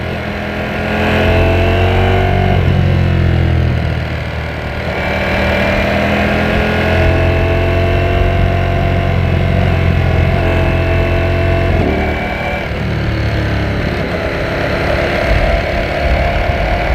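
Ducati Panigale V4S's V4 engine under way, its pitch climbing and then dropping back a few times as the gears change.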